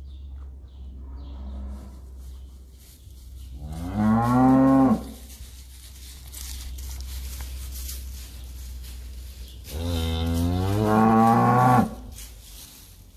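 Cattle mooing twice: a call of about a second about four seconds in, then a longer call of about two seconds near the end, each rising and then falling in pitch. A steady low hum runs underneath.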